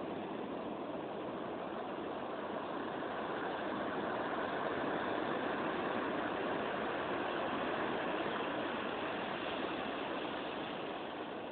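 Ocean surf breaking on a beach: a continuous roar of waves, growing a little louder in the middle.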